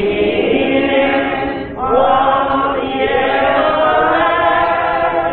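Church choir singing a gospel song, several voices holding notes with vibrato. About two seconds in there is a brief breath-pause, then a new phrase swoops up in pitch.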